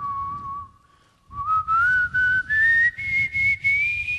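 A person whistling a tune: a held note, a short break about a second in, then notes climbing step by step to higher pitches, over a soft low accompaniment.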